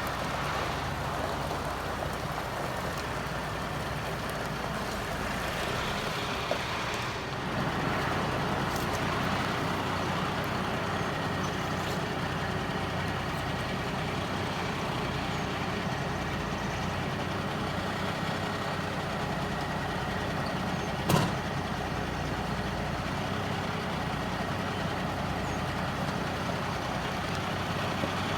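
Heavy truck engine running steadily as the truck slowly manoeuvres a 40-foot shipping container into position, with one short, sharp bang about 21 seconds in.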